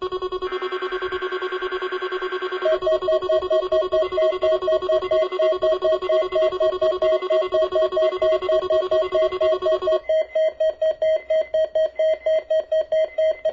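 Weather radio alert tones for the required weekly test. A steady warning tone sounds for about ten seconds. About three seconds in, a second, lower alarm tone joins, beeping rapidly at about four beeps a second, and it keeps beeping after the steady tone cuts off.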